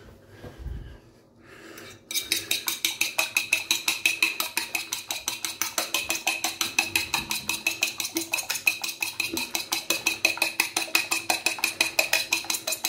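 A fork beating an egg in a plate: a rapid, even clicking of the fork against the plate, several strokes a second, starting about two seconds in. The plate rings lightly under the strokes.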